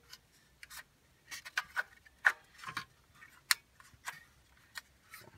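Hard plastic cup holder and coin tray parts clicking and tapping as they are handled and turned over in the hand, about a dozen irregular sharp clicks.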